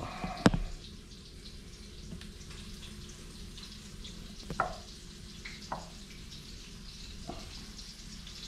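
Fish fillets being dredged in flour in a glass bowl: a few light knocks and clinks of hands and fish against the bowl, a sharp one about half a second in, over a steady low kitchen hum.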